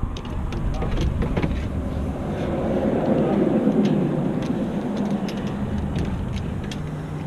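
A motor vehicle's engine noise swells to a peak about halfway through and then fades, as if it is passing by. Scattered light clicks sound over it.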